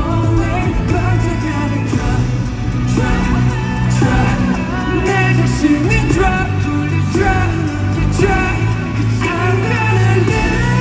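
A male singer singing a pop song live over its backing track, heard through the arena sound system from the audience.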